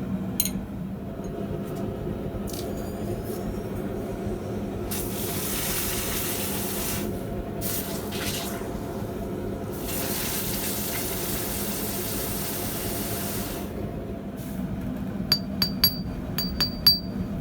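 Hot steel quenched in water, a hissing rush in two spells a few seconds long, over a steady low hum. Near the end, a quick series of light taps on the quenched steel, each ringing clearly: a clear ring is the sign that the hardened piece has no cracks.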